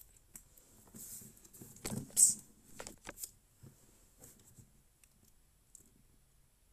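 Soft rustles and taps in a small room, scattered through the first three seconds with the loudest about two seconds in, then near quiet.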